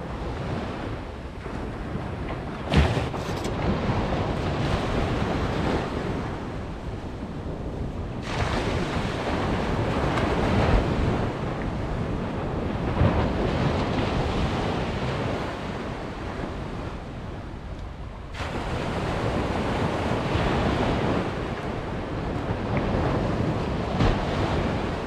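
Surf washing onto a sandy beach, with wind buffeting the microphone; the rush of the waves swells and eases every few seconds. A sharp click about three seconds in is the loudest moment.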